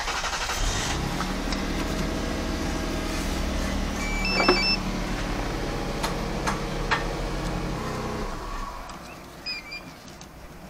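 Lexus RX300's power radio antenna motor running with a steady hum for about eight seconds, driving the newly fitted mast, then stopping; it is the sign that the repaired antenna works. A short electronic beep sounds about four seconds in.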